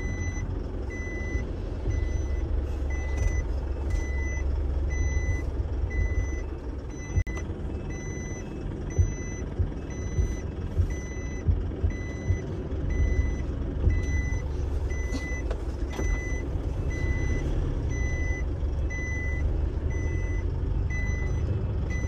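Delivery truck's reversing alarm beeping at an even pace while the truck backs up, over the low, steady running of its engine heard from inside the cab.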